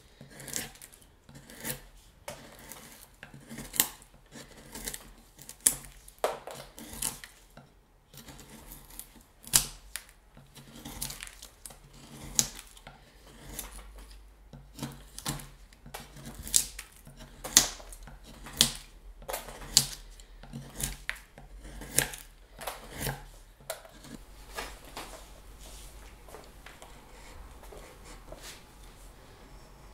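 Hand carving knife cutting into wood in short, sharp strokes, roughly one a second, thinning out to faint scraping near the end.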